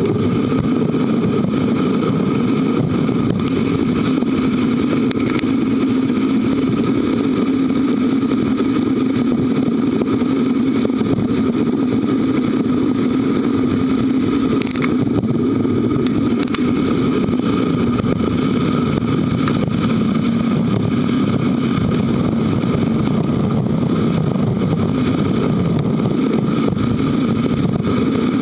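Steady, unbroken riding noise picked up by a camera on a moving Trek 7.3 FX hybrid bicycle, a dense low rumble with a few faint ticks.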